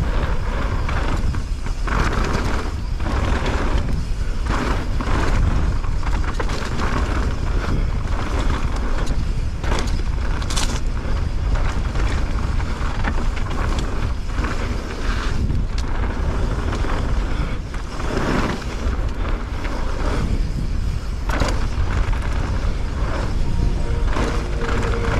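Mountain bike descending a dirt trail, heard through the action camera: a steady wind rumble on the microphone, tyre noise and the bike knocking and rattling over bumps. Music comes in near the end.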